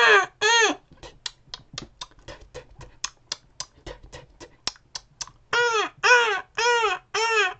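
A man's voice imitating beach sounds: two high, arching cries, then a few seconds of quick, short breathy pants, then four more arching cries, about two a second.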